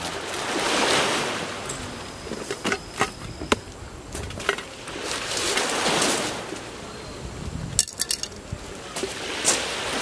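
Waves washing on the shore: a noisy rush that swells and fades three times, about every four seconds, with a few sharp clicks in between.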